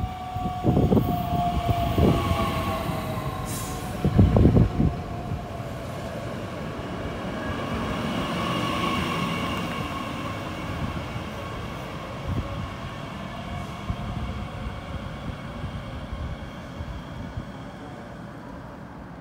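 DB Class 442 (Bombardier Talent 2) electric multiple unit pulling into a station and slowing, with an electric whine that falls slightly in pitch and the rumble of its wheels, loudest as it passes close about halfway through and then fading as it comes to a stop. Several heavy low thumps sound in the first five seconds.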